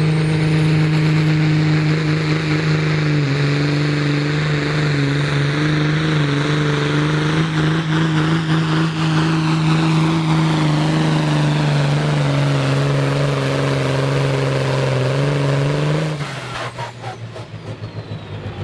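Pulling tractor's turbocharged diesel engine held at steady high revs under full load during a pull, its pitch dipping slightly now and then. About sixteen seconds in the engine note cuts off sharply and the sound drops away, leaving a high whine that falls in pitch.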